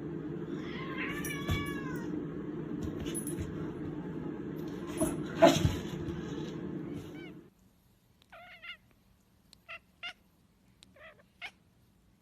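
Domestic cat meowing: one drawn-out meow over a steady background hum, with a few knocks, the loudest about halfway. Then a sudden drop to quiet, and short high mews, several in a row.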